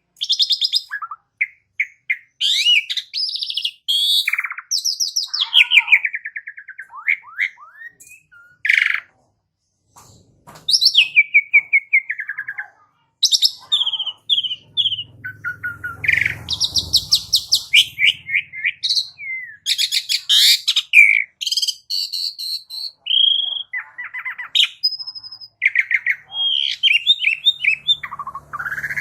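Asian pied starling (jalak suren) singing a long, varied song of rapid chips, whistles and quick rising and falling notes, with a couple of brief pauses.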